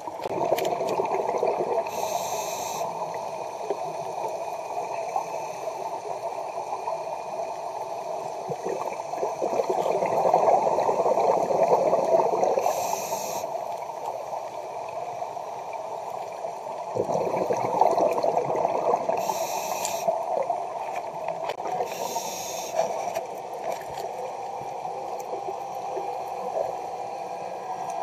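Scuba breathing heard underwater: continuous gurgling of exhaled air bubbles that swells and fades, with four short hisses of a regulator's inhalation spread through it.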